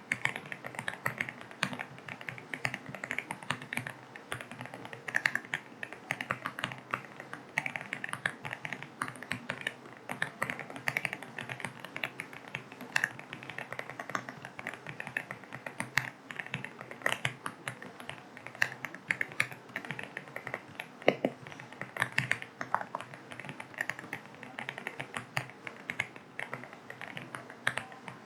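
Continuous typing on an AULA F75 mechanical keyboard with linear switches: rapid, irregular key clicks, over a steady hiss of rain.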